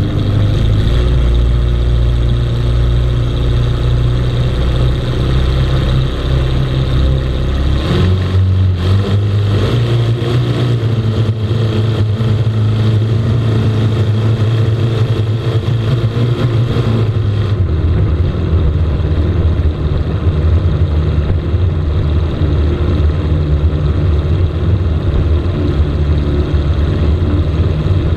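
Racing boat engine running steadily at low speed, then revving up about eight seconds in as the boat gets underway, and settling into a steady deeper run from about seventeen seconds on.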